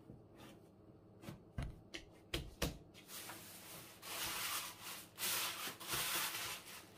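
Hands kneading and pressing a ball of dough on a wooden tabletop, with a few soft thumps, then a thin plastic carrier bag crinkling and rustling loudly from about three seconds in as the dough is wrapped in it.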